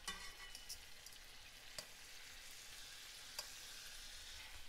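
Filet mignon steaks sizzling in butter in an enameled pan, a steady frying hiss. A few light clicks of metal tongs on the pan and meat as the steaks are turned.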